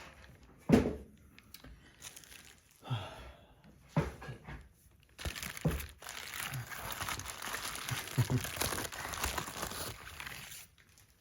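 Bubble wrap and plastic packaging being handled and pulled apart: crinkling and rustling, with a few sharp knocks in the first few seconds and a long stretch of continuous crinkling from about halfway through.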